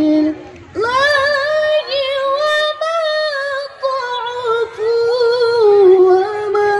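A qori's solo voice chanting Quranic recitation in one long melismatic phrase. It starts after a short breath just after the opening, then is held and ornamented, wavering and sinking slowly in pitch toward the end.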